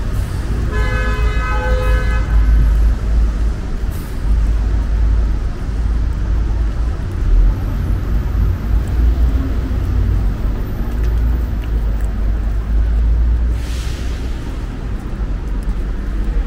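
Street traffic on a rain-wet city road, with a steady low rumble. A car horn sounds for about a second, starting about a second in, and a short hiss comes near the end.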